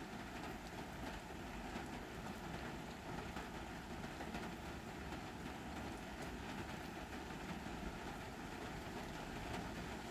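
Steady rain falling, an even hiss with many small drops ticking through it.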